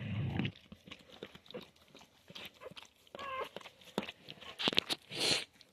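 Black Labrador mother licking her newborn puppy clean: a run of small, irregular wet licking clicks. A short high squeak, typical of a newborn puppy, comes about three seconds in, and a brief breathy puff comes near the end.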